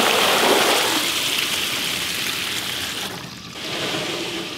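Rinse water gushing out of a tipped cooler through a plastic colander and splashing onto concrete, loudest at first and tapering off over about three seconds. Near the end a softer rush follows as the wet autumn olive berries slide out of the cooler into the colander.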